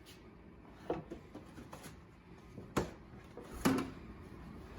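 A few separate knocks and clicks, four in all, spread out over the stretch, the loudest about three and a half seconds in.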